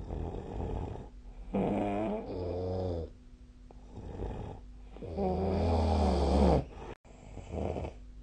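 A person snoring in sleep: a run of about five snores with a wavering pitch and gaps between them, the longest and loudest about two-thirds of the way through. A faint steady hum runs underneath, and the sound cuts out for an instant just before the last short snore.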